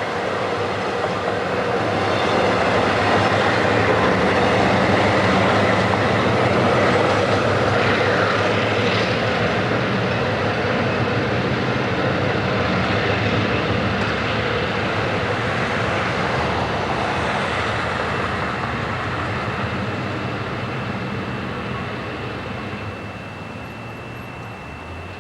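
A train rolling past on the track: a loud rumble of wheels and cars that swells over the first few seconds, holds, then fades away over the last several seconds. A thin steady high ring sets in about halfway through.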